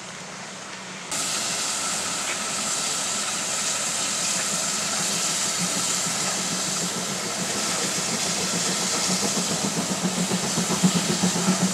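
Steam locomotive with a steady hiss of escaping steam that starts abruptly about a second in. A quick rhythmic beat builds and grows louder near the end as the engine draws close.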